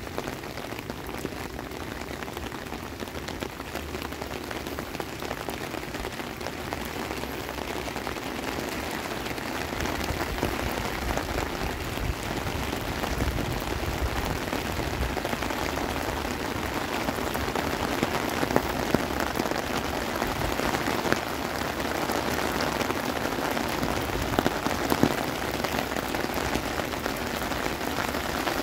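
Heavy rain pouring down, a steady hiss dense with the patter of drops, growing a little louder after about ten seconds.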